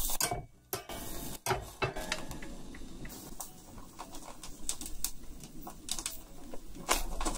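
Slices of hanwoo beef sizzling on a small tabletop grill fired by solid fuel. Metal tongs click against the wire grate now and then as the pieces are placed and turned.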